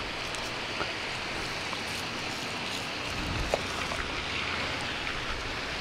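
Steady outdoor background hiss, with a few faint clicks as the smart glasses and their wrapping are handled.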